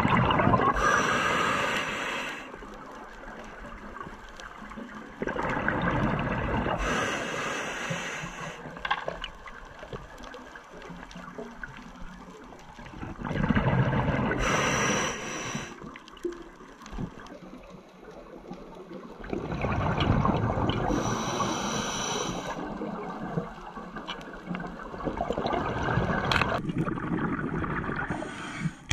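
Scuba diver breathing through a regulator underwater: a short hiss of each inhale, then a gurgling rush of exhaled bubbles, repeating about every six seconds.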